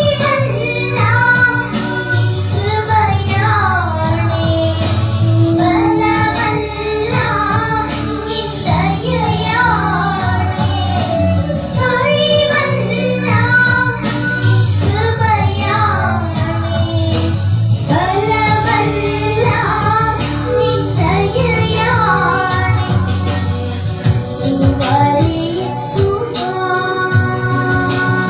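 Two young girls singing a Christian song into microphones, their voices amplified over an instrumental backing with steady low held notes.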